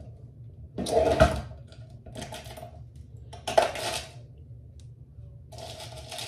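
Small hard objects clattering and rattling in four short bursts as things are rummaged through by hand, the loudest about a second in.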